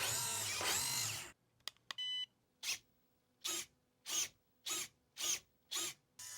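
RC Hummer H1 model's electric motor and drivetrain whining under throttle, its pitch rising and falling, then cutting off. A short beep follows, then six short throttle blips about every half second.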